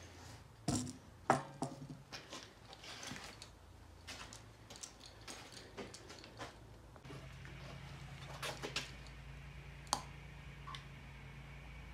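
Scattered light knocks and clicks of materials and tools being handled at a workbench. A low steady hum comes in about seven seconds in.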